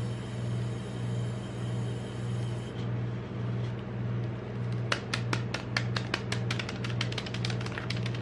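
Steady low hum of the ice cream roll machine's cold plate. From about five seconds in, a quick run of sharp crinkles and taps as gloved fingers handle the plastic wrapper of a chocolate bar.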